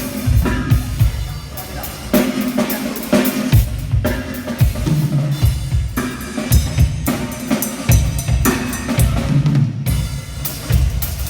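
Music led by a drum kit playing a steady beat of bass drum and snare hits with cymbals, over a sustained low bass line.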